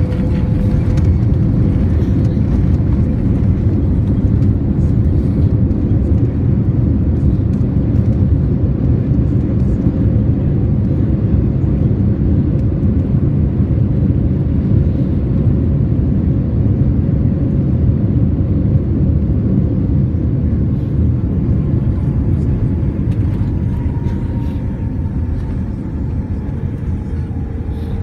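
Boeing 787-9 airliner's landing roll heard from inside the cabin: a loud, steady rumble of the aircraft running down the runway. It eases off over the last few seconds as the aircraft slows, with a faint whine falling in pitch.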